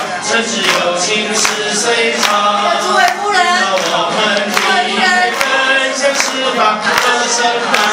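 A group of people singing a song together, with hands clapping along in a steady beat.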